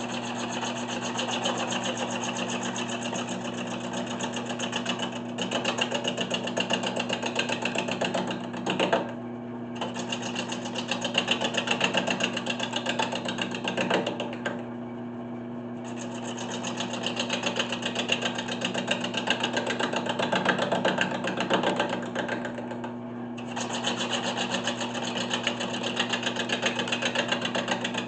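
1981 Delta 12-inch wood lathe running, with a hand-held gouge cutting into a spinning spalted maple slab. A steady motor hum lies under a fast, fluttering cutting noise, and the cutting noise drops away briefly three times.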